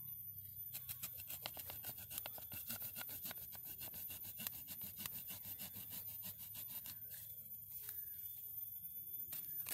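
Small hand pruning saw cutting through a thick Ficus retusa root in quick back-and-forth strokes, a faint rasping that stops about seven seconds in.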